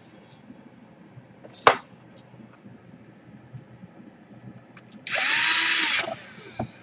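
Small electric screwdriver driving a screw into a laptop case, running for about a second near the end with a whine that rises, holds and falls. A single sharp click a little under two seconds in.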